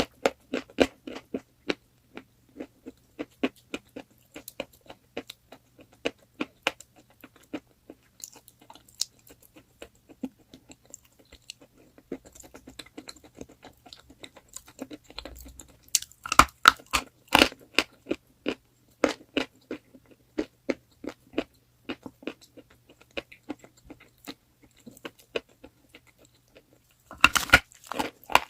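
Close-up chewing of crunchy chalk: a steady run of dry, crackling crunches, with louder clusters of crunching about sixteen seconds in and again near the end.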